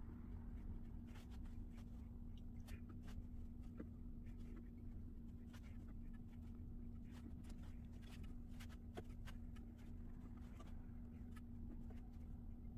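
Faint scattered ticks and rustles of wet paper strips being handled and pressed onto a papier-mâché mask, over a steady low hum.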